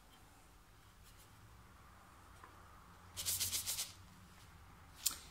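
Fine sand in a shallow wooden tray shaken quickly back and forth for under a second, a rasping, rattling shake a little past the middle that smooths the sand and wipes out a number traced in it. A single light click follows near the end.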